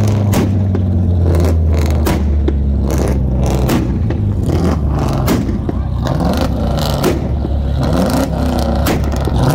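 Car engine held against a two-step launch limiter: a steady, rev-limited drone broken by a rapid string of sharp exhaust pops and bangs, about two a second.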